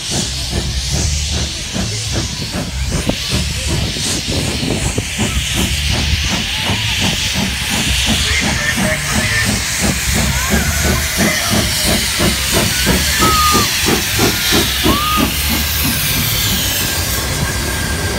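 Steam locomotive 3526, a C35-class 4-6-0, working past at speed with regular exhaust beats and loud hissing steam, growing louder as it draws level. A few short squeals come through in the middle.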